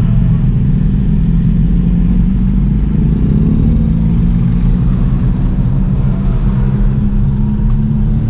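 A motor vehicle's engine running steadily at low revs with a low drone, its pitch rising slightly a few seconds in.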